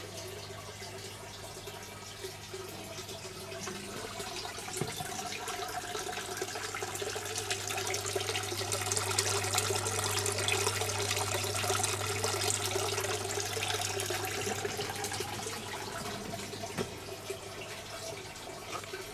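Return water from a hydroponic growing tower pouring and splashing into the reservoir tub, over the steady low hum of a 2000 L/h submersible pump. The splashing grows louder toward the middle and eases again near the end.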